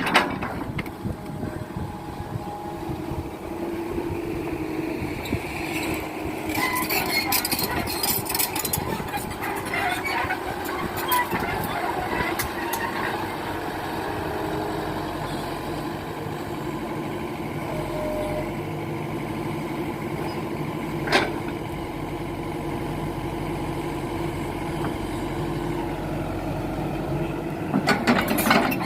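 Heavy diesel machinery running steadily, with irregular metallic clanks and rattles for several seconds and a single sharp knock about two-thirds of the way through.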